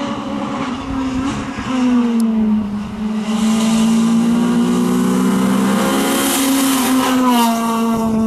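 Honda Civic F2000 rally car's engine revving hard on a stage as it comes up the road toward and past, the pitch dipping with gear changes about a second and two seconds in. Tyre and engine noise grow loudest as it goes by, and the engine note falls near the end as it passes.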